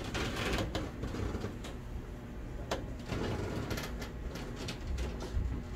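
Low, steady room noise with a few scattered light clicks and knocks.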